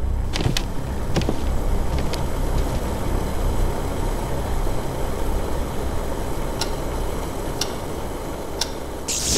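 A steady low rumble with scattered sharp clicks, then a wall clock ticking about once a second over the last few seconds. A loud hiss starts right at the end.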